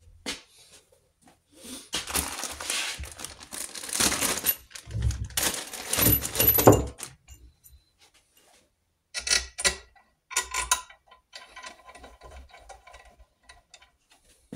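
Workbench handling noise: a few seconds of rustling, then sharp metallic clinks and light rattling as steel crankcase bolts are picked up and set down.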